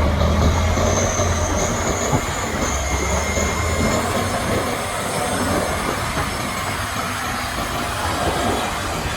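Challenger 875C tractor working a field with a Gaspardo Diablo 600 tillage implement: a heavy engine drone mixed with the continuous clatter of steel tools in the soil. A thin high whine sits over it for the first few seconds, and the noise slowly fades.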